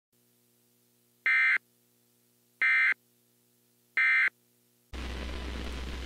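Emergency Alert System end-of-message data bursts: three short, identical digital warbling tones about 1.3 seconds apart, the signal that closes an EAS alert. Near the end a steady low hum with hiss comes in.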